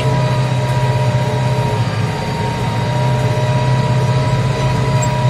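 Tractor diesel engine running steadily at full throttle under the load of a plough, with a steady whine over the engine hum.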